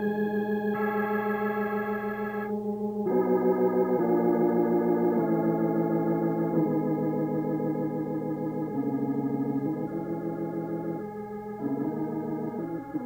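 Organ music accompanying the film: sustained chords that change every second or two, with a wavering tremolo.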